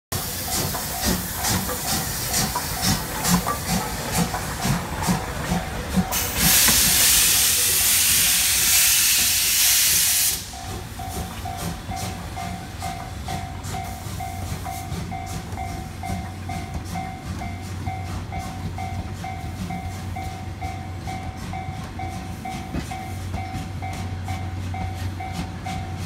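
C58 steam locomotive chuffing with rhythmic exhaust beats, then a loud steady hiss of released steam lasting about four seconds. After the hiss cuts off, a level-crossing alarm dings in an even rhythm over the low rumble of passenger coaches rolling past.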